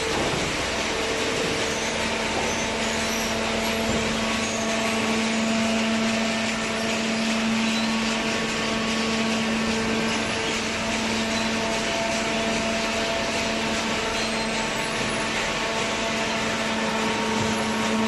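Hydraulic waste-paper baler running: a steady motor-and-pump hum with a constant tone over a machine noise.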